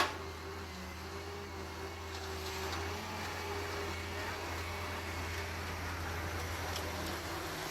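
Heavy digging machine's engine running steadily, with a sharp knock right at the start.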